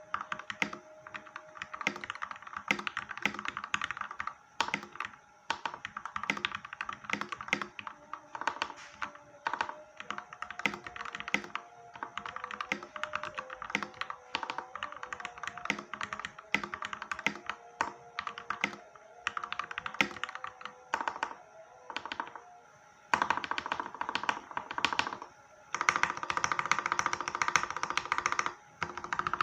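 Continuous typing on a CMMK MK870 mechanical keyboard with lubed Gateron Yellow KS-3 linear switches and PBT Cherry-profile keycaps: a rapid stream of keystroke clacks, pausing twice briefly about two-thirds of the way through. Background music plays underneath.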